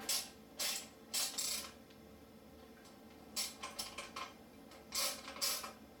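Hand ratchet clicking in about five short bursts with pauses between, as the rear sprocket bolts are run down snug on the wheel hub.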